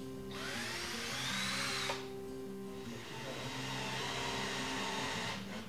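Cordless drill pre-drilling a pilot hole into a wooden door, run in two bursts: a short one whose whine climbs in pitch and cuts off after about a second and a half, then a steadier one of about two and a half seconds. Background music plays underneath.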